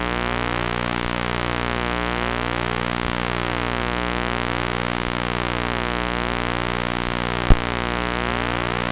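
Steady electronic buzzing drone made of a dense stack of tones over a low hum, pulsing fast and evenly. A single sharp click about seven and a half seconds in.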